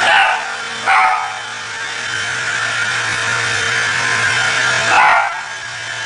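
A dog barks three times: twice close together at the start and once more about four seconds later. Under the barks a vacuum cleaner runs steadily.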